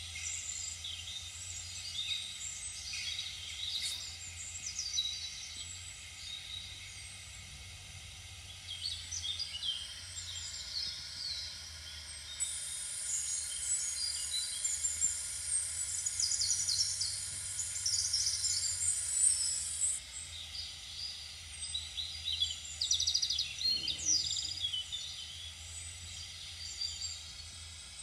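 Many small birds chirping. From about twelve to twenty seconds in, a steady high-pitched sound runs under them, over a faint low hum.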